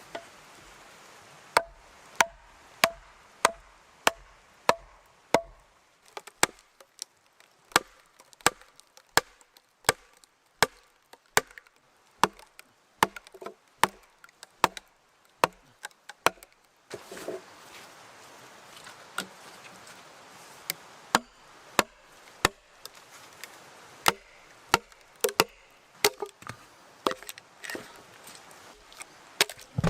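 Wood being chopped with a bladed tool: a long run of sharp chopping strikes, about two a second, fairly regular through the first half and less even later.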